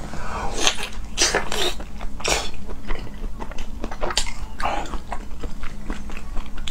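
Close-miked mouth sounds of a person biting and chewing slices of raw salmon: an irregular run of wet clicks and smacks, densest in the first couple of seconds.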